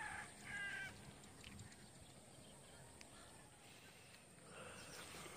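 Near silence: faint open-air ambience, with a brief faint high-pitched call about half a second in and a few soft ticks later.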